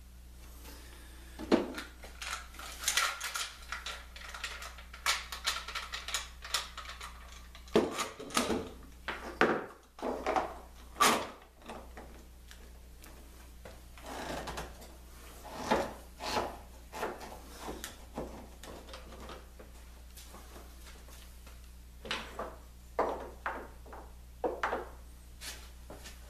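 Bar clamps being slid along their steel bars and tightened onto a laminated plywood ring: irregular metallic clacks, rattles and knocks in short clusters with pauses between them.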